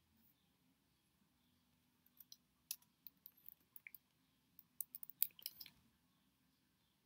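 Typing on a computer keyboard: two short runs of quick, faint key taps, the second run a little before the sixth second.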